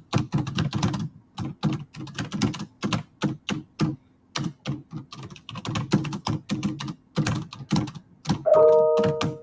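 Typing on a computer keyboard, a quick run of key clicks at several a second. Near the end a brief steady tone sounds over the typing for under a second.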